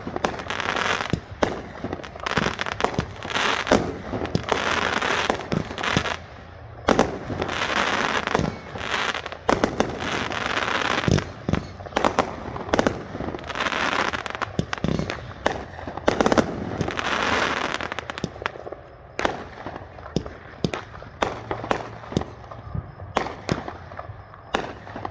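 Aerial fireworks display: a rapid string of sharp shell bursts, many following each other within a second, several trailed by about a second of crackling. In the last few seconds the bangs come more spaced out.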